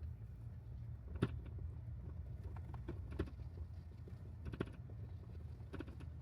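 Car running on the road, heard from inside the cabin: a steady low rumble with a few light clicks and knocks from the interior.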